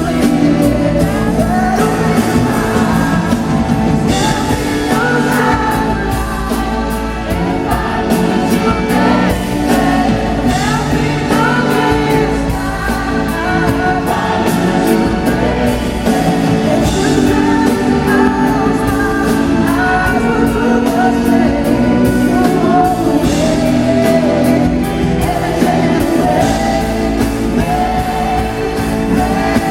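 Live concert performance of a pop soul ballad: sung vocals over a full band, with steady drums and bass.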